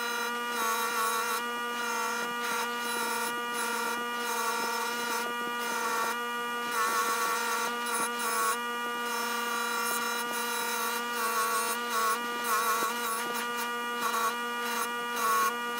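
Bench grinder running a wire wheel with a steady hum, with the metal parts of a Stanley 220 block plane pressed against the bristles to scrub them clean. A rasping scratch swells and wavers each time a part is pushed into the wheel.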